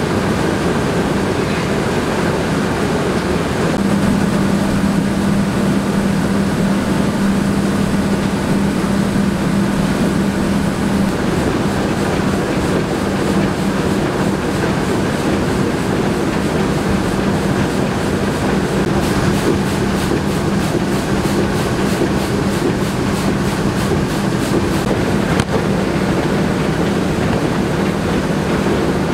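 Rice milling machinery running: loud, steady mechanical noise with a constant low hum.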